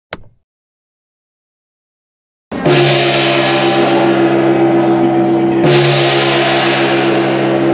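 Silence for the first couple of seconds, then a ship's hand-held departure gong struck twice, about three seconds apart, each strike ringing on with steady tones: the ferry's signal that sailing time is near.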